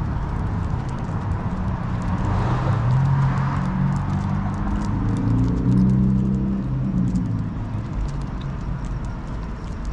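City street traffic: a vehicle passes, its engine hum strongest in the middle few seconds, over a steady low rumble and light ticking steps from walking along the sidewalk.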